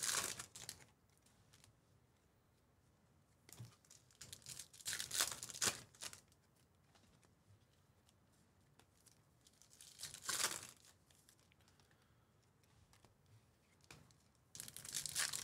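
Plastic trading-card pack wrappers being torn open and crinkled, in a few short bursts of tearing and rustling with quiet gaps between.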